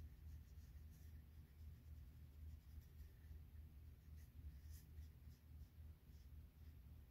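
Near silence: faint scratchy strokes of a watercolour brush worked across paper, over a low steady hum.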